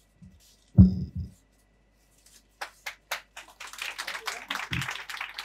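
A loud, low thump about a second in. Then audience applause: a few separate claps begin a little past halfway and quickly build into steady clapping from many hands.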